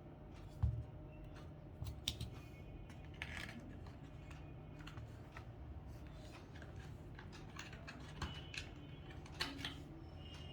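Scattered clicks, taps and short scrapes of a Casio fx-991MS calculator's plastic case and parts being handled and pried apart, with a soft thump about half a second in.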